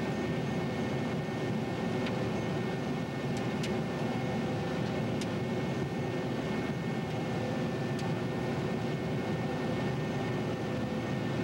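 John Deere 9600 combine running steadily while harvesting soybeans, heard from inside the cab: a continuous drone of engine and threshing machinery with several steady whining tones. A few faint ticks sound over it.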